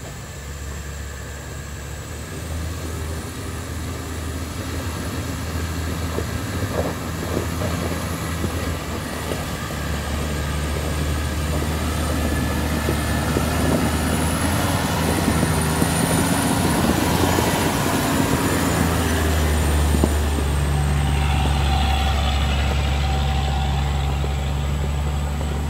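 Off-road 4x4 engine running steadily, growing gradually louder, with a deep hum that strengthens further near the end.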